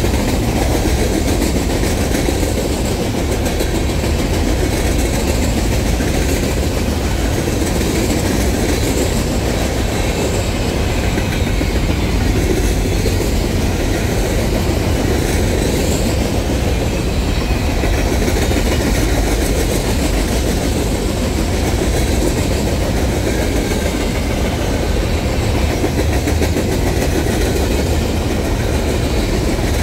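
Loaded trash train of blue container cars rolling steadily past: a continuous rumble of steel wheels on rail.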